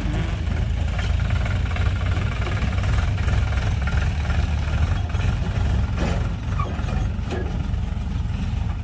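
Heavy diesel engine running steadily, with a deep low rumble and a couple of light knocks near the end.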